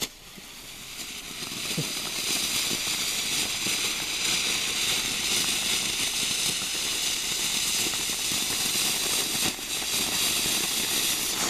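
Ground fountain firework spraying sparks, a steady loud hiss with scattered small crackles. The hiss builds over the first two seconds, then holds.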